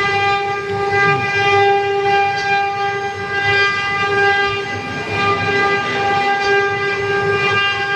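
CNC router carving wood: the spindle holds a steady high whine with many overtones over the uneven noise of the cut.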